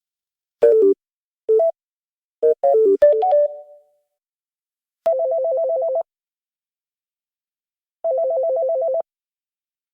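Electronic phone tones. A few short melodic beeps come in the first four seconds, then a warbling two-tone ring about a second long, which repeats three seconds later.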